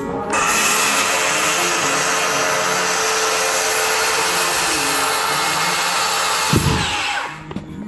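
Circular saw running steadily as it cuts through wooden floor blocking, then the blade spins down with a falling whine about seven seconds in. A low thump comes just before it winds down.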